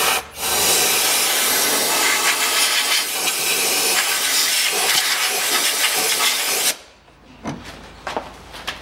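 Compressed-air blow gun hissing as it blows dust out of a car's empty air filter housing: a brief blast, a short break, then one long blast of about six seconds that cuts off. A few light knocks follow near the end.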